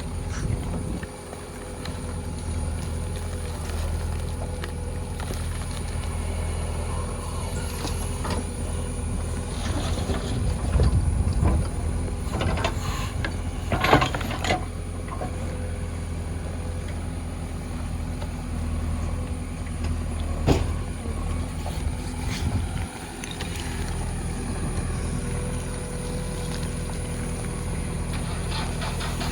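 Heavy diesel engine running steadily at a backhoe-and-lorry loading site, swelling briefly in the middle, with a few sharp knocks.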